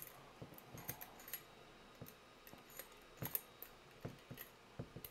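Faint, irregular clicks and light scraping as a 3 mm hand tap in a tap wrench is turned back out of a freshly tapped hole in a 3D-printed PETG part; the loudest click comes a little over three seconds in.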